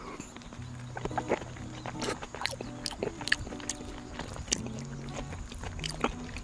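Eating sounds: quick sharp clicks of a utensil against a dish and chewing while jjajang rice is eaten, over soft background music.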